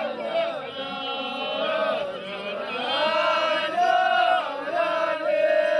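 Ahwach singing: a group of men chanting a slow sung line together, holding long notes that bend up and down, with no drumming.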